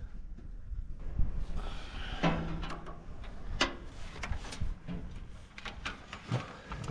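Hands working a clear plastic hose onto a small brass fitting on a sawmill head: a string of scattered light clicks, knocks and rustles of tubing and metal being handled.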